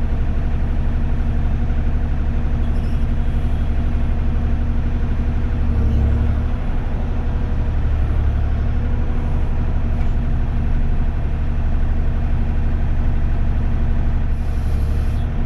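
Kubota KX040 mini excavator's diesel engine running steadily, heard from the operator's seat, with a deeper surge under load about six seconds in.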